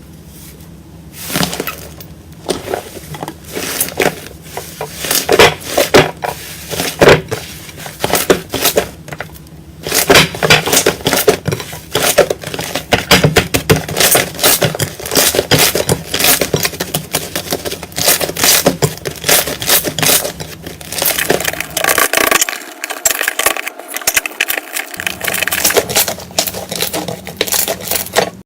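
Dry soap being cut and crushed with a knife: a dense run of crisp crackles and crunches.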